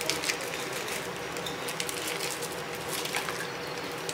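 Thin plastic bag crinkling and rustling in the hands as its contents are shaken out into a pot, with a faint steady hum underneath.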